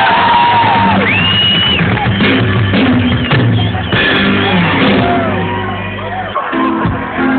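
A live rock band plays loudly through an outdoor PA, heard from within the crowd. Drums and a full band carry on under sliding notes, and the low bass drops out about six seconds in.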